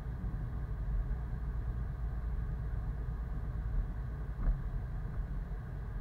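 Fiat Doblo campervan driving, its engine and road noise heard from inside the cabin as a steady low rumble.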